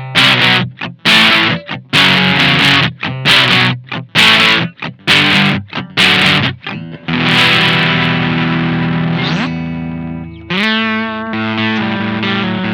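Electric guitar through a Maestro Fuzz Tone FZ-M fuzz pedal set for low-gain fuzz. Short, choppy chords for the first seven seconds, then a held chord that rings out and fades, and a new chord struck about ten and a half seconds in.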